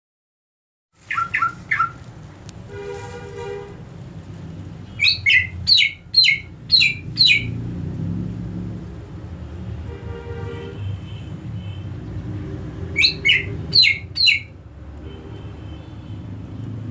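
Green leafbird (cucak ijo), sick with a cough, calling: runs of three to five sharp chirps that sweep down in pitch, with a short harsh buzzy call twice between them.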